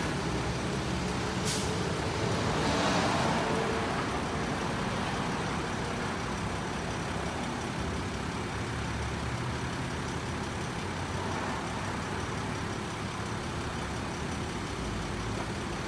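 Ambulance idling while its VB air suspension vents air: a sharp burst of air about a second and a half in, then a hiss of escaping air lasting a second or so. This is the suspension cycling on its own, continuously raising and lowering, which is the fault.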